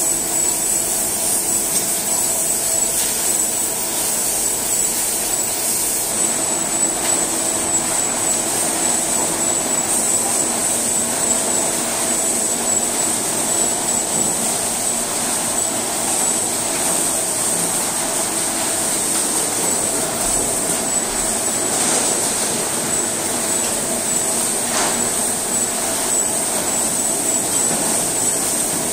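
Steady din of crab-processing machinery, conveyors and motors running, with a constant high whine over it.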